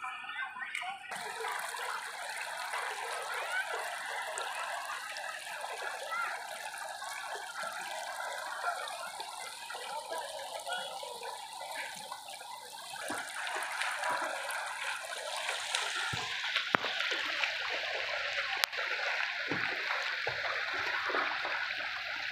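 Shallow river water running over a pebble bed, a steady rippling and trickling rush that grows louder about two-thirds of the way through.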